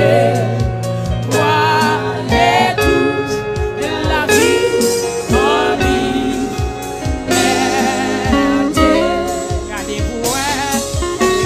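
Gospel hymn with singing over band accompaniment, driven by a steady drum beat.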